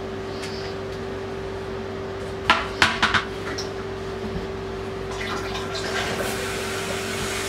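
Water running in the toilet's supply plumbing just after it is turned back on: a steady hiss with a faint steady hum. About two and a half seconds in come four quick sharp clicks.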